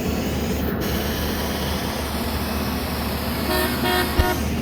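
Horn on a track maintenance machine rolling along railroad tracks giving a few quick toots near the end, over a steady rumble, with one short knock among the toots.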